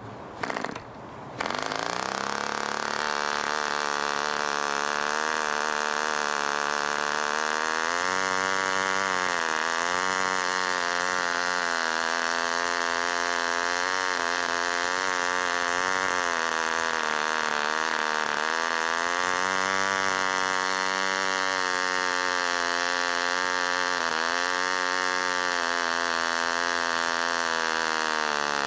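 Ohlsson & Rice 23 two-stroke spark-ignition model aircraft engine flicked over by its wooden propeller, catching about a second and a half in. It then runs steadily at high speed, its note dipping and recovering several times, typical of a very sensitive needle valve on an old sparkie.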